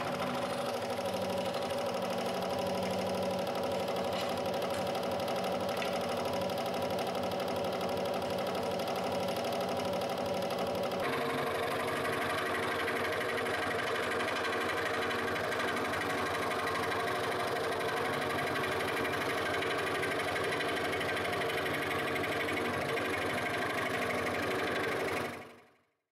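Proxxon scroll saw running, its blade stroking up and down as it cuts through plywood: a steady mechanical buzz. Its tone shifts about eleven seconds in, and it fades out at the very end.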